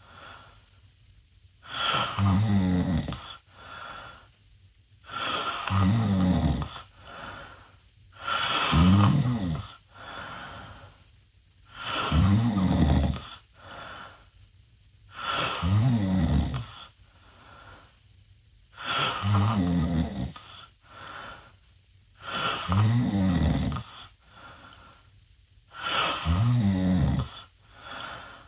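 A teenage boy snoring loudly with his mouth open during sleep. There is a loud, rumbling snore about every three and a half seconds, with a quieter breath between each one.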